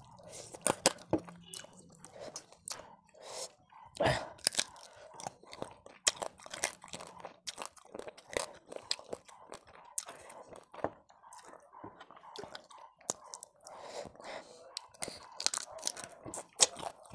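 A person chewing mouthfuls of rice and fish curry eaten by hand, close to the microphone, with a dense run of short, sharp mouth clicks; a few louder ones come about four seconds in and near the end.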